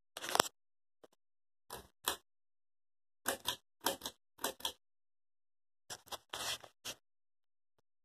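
Harbor Breeze Woodbridge ceiling fan's pull-chain switch being pulled to start the fan: about a dozen short clicks and chain rattles in small clusters, the loudest at the very start.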